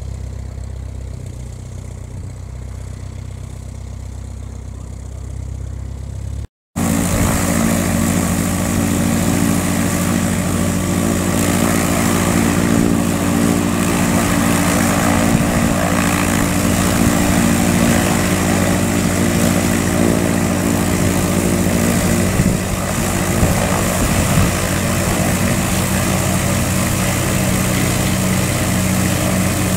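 A light aircraft's propeller engine ticking over a little way off. After a short break, the engine of a Czaw SportCruiser runs steadily at idle close by, louder, with its propeller turning.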